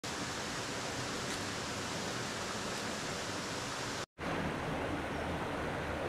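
Rushing water of a rocky stream sliding over rock slabs and small cascades, a steady rush; it cuts out for an instant about four seconds in.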